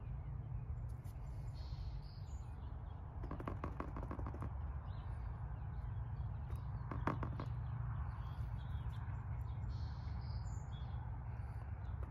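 Outdoor background with a steady low hum and faint bird chirps. Short runs of light clicks and taps come about three seconds in and again near seven seconds, from hands working the tubs of repair paste with a wooden stick.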